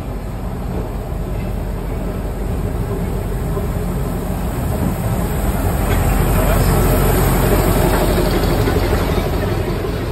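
Diesel locomotive engine running as it pulls a train of carriages in alongside the platform, with the wheels rolling past on the rails. The low rumble grows louder, peaks about two-thirds of the way through as the carriages pass, then eases slightly.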